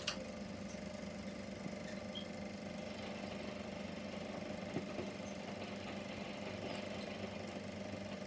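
Super 8mm sound film projector running steadily, its motor and film transport making a low, even whir with a hum. A single click right at the start.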